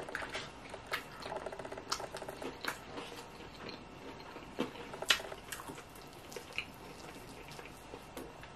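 Close-miked wet chewing and mouth sounds of someone eating fried chicken, with scattered small clicks and smacks as the meat is pulled apart by hand.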